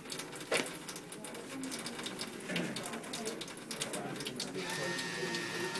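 Paper towels rustling and crumpling as hands are dried, with a sharp click about half a second in. Near the end a motorized paper towel dispenser starts up with a steady whine as it feeds out a towel.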